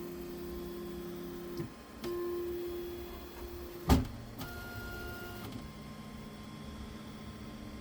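3D printer's stepper motors whining as the axes move, in runs of steady pitch that shift to new pitches every second or two, with one sharp click about four seconds in.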